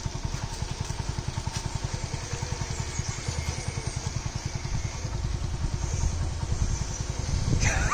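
Motorcycle engine running steadily, with an even, rapid low pulse of about ten beats a second.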